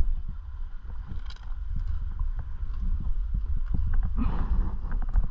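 Irregular footsteps and scuffs on rock and grit, with wind buffeting the microphone as a low rumble; a brief rustle about four seconds in.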